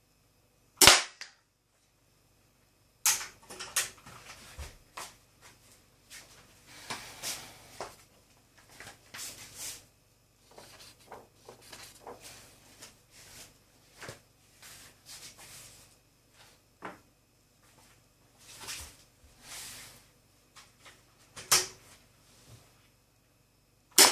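Condor 2500 toy pistol being fired, each shot a sharp snap: one about a second in, another about three seconds in, one a little after twenty-one seconds and one at the very end. Between the shots come many softer clicks and rattles.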